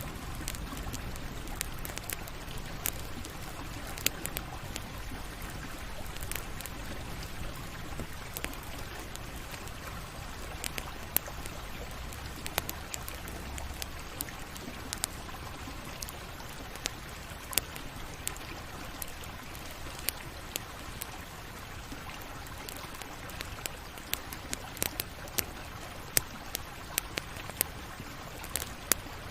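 Campfire burning with a steady hiss and many sharp crackles and pops, the pops coming more often near the end.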